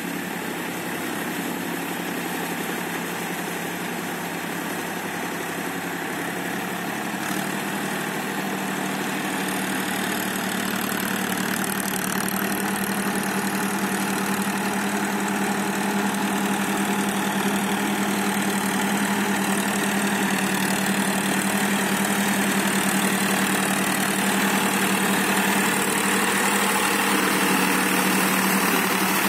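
Powertrac tractor's diesel engine running steadily as it pulls a rotavator through flooded paddy mud, growing gradually louder as the tractor comes close.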